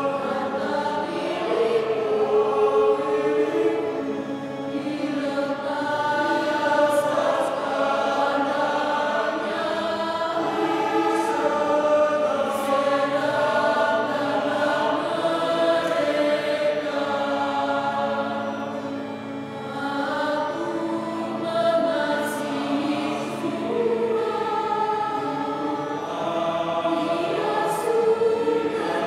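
Mixed choir of men's and women's voices singing a hymn in two-part harmony.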